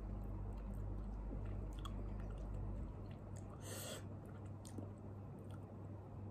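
A person chewing a mouthful of kimchi and noodles, faint and close, with small mouth and fork clicks and one short hissing burst about four seconds in. A low steady hum underneath stops about halfway through.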